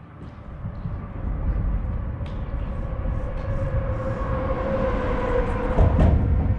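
Rumble of a vehicle crossing the bridge overhead. It builds over the first second and a half and carries a steady whine that sinks slightly in pitch, with a thump near the end.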